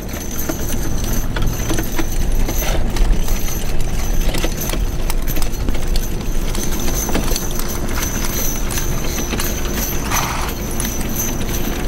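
A pair of draft horses trotting in harness, pulling a wagon over grass: a steady run of hoofbeats mixed with knocks and rattles from the wagon and harness.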